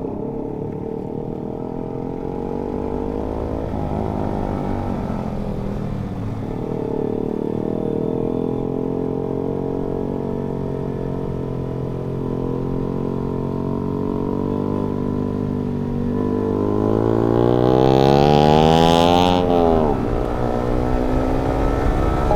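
Motorcycle engine running under way. Its pitch holds fairly steady, then climbs steadily in the last third as the bike accelerates. The pitch drops sharply about twenty seconds in as the throttle is closed or a gear is changed.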